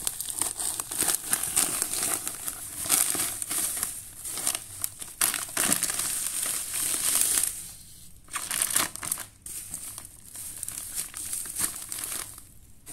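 Black plastic bubble-wrap packaging and a plastic bag of flour crinkling and rustling as they are handled and unwrapped, a dense crackly rustle that eases off near the end.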